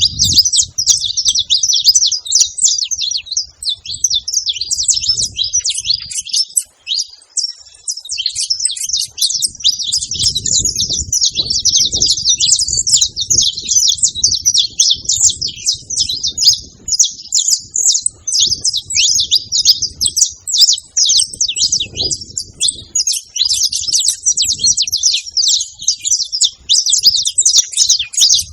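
A flock of saffron finches chirping over one another in a continuous, dense chatter of short high calls with no pauses.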